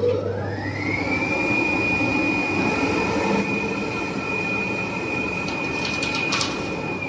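Richpeace automatic single-ply cutting machine running: a motor whine rises in pitch over about the first second, then holds steady over the machine's constant mechanical noise, with a few light ticks near the end.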